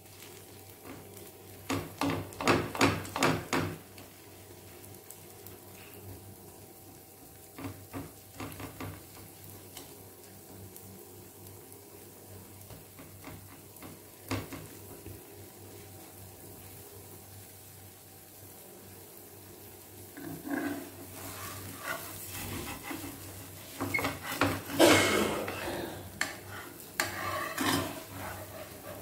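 Spatula pressing and scraping over a dosa and its corn filling on a hot pan: clusters of short strokes at the start, a few isolated taps in the middle, and more scraping near the end. The dosa sizzles quietly between the strokes.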